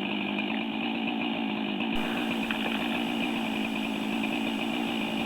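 A small engine idling steadily at a constant pitch.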